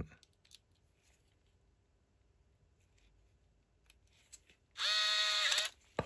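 A small screw is driven back into a plastic switch housing with a hand screwdriver. There is near silence with a few faint ticks, then a high-pitched squeak lasting about a second near the end.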